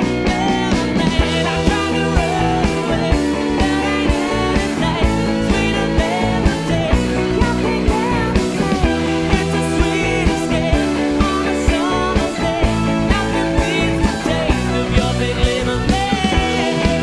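Live psychedelic soul band playing, electric guitar over bass and a steady drum beat.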